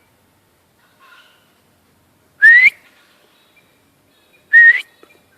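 A person whistles twice to call a dog back. Each is a short, loud whistle rising in pitch, about two seconds apart.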